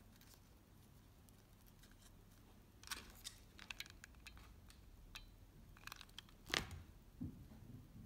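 Faint handling sounds of a rhinestone centre being hot-glued onto a satin ribbon flower: small clicks and rustles, a cluster about three seconds in and a sharper click about six and a half seconds in.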